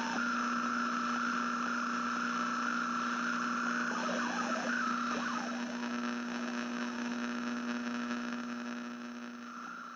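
A steady electronic hum with hiss over it, holding one low pitch throughout, fading out near the end.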